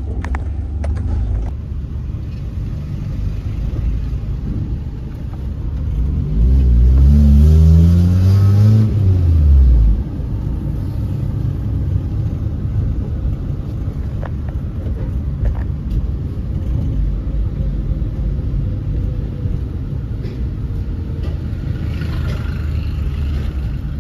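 Car engine and road noise from a moving car. About six seconds in the engine revs up, rising in pitch for about three seconds, then drops away suddenly, and the steady engine and road drone carries on.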